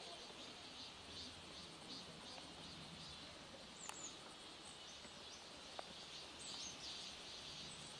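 Faint outdoor ambience: a steady chorus of insects, with a few short high bird chirps about halfway through and again a little later.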